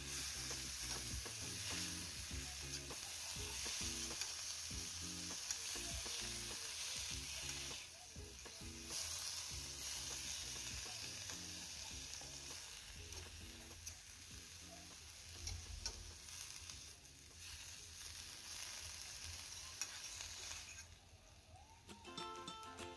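Broccoli, cauliflower and carrots sizzling in butter and oil in a metal frying pan while being stir-fried. The sizzle dips briefly a few times.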